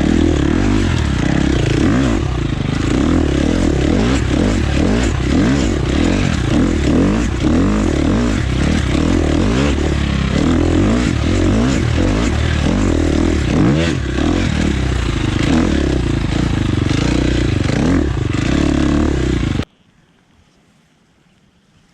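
Husqvarna FX 350 dirt bike's single-cylinder four-stroke engine being ridden on a dirt trail, revving up and down in quick rises and falls of pitch. It cuts off suddenly near the end, leaving a much quieter background.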